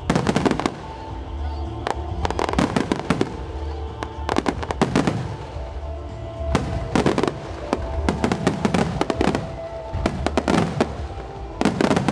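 Starmine fireworks display: clusters of shells bursting in rapid volleys every second or two, with music playing underneath.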